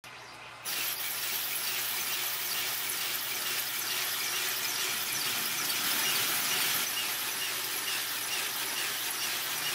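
Small geared DC motor running steadily with a high-pitched, hissy whir as it drives the legs of a 3D-printed walking robot, coming on abruptly just under a second in.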